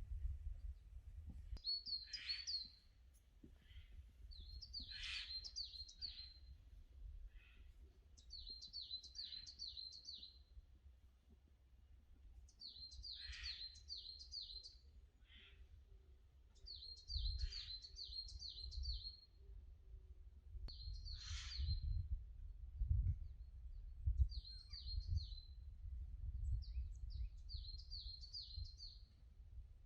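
A songbird singing repeated short phrases every few seconds, each a quick run of five or six high, downward-sliding notes, over a faint low rumble.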